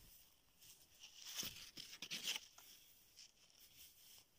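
Faint rustling and crackling of old, dry, torn paper: a fragment of a book cover handled in a gloved hand. There are a few short crinkles, the clearest about a third of the way in and again near halfway.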